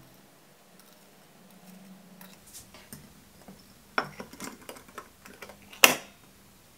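Glass clip-top jar being closed: faint small clinks of the wire clasp, then the glass lid knocks down onto the rim about four seconds in. Near the end the wire bail clasp snaps shut with one sharp click, the loudest sound.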